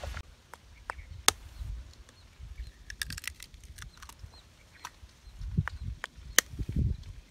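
Eggs being cracked against the rim of a bowl and dropped into batter: a few sharp taps and clicks, the loudest about six seconds in, with light handling noise.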